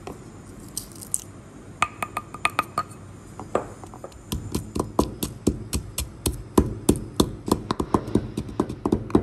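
Stone pestle striking a speckled stone mortar as roasted fennel seeds, cardamom and dry ginger powder are pounded into powder. First come a few scattered knocks, some with a short ring. From about four seconds in, the pounding turns fast and even, about four or five strikes a second.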